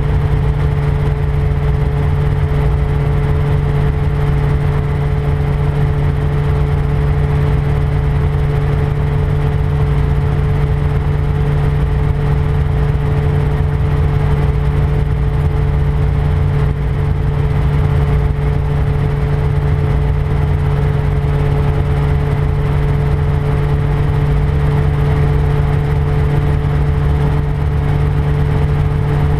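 RotorWay 162F helicopter in steady forward flight: its piston engine and rotor drone evenly with a constant low hum and no change in pitch or level.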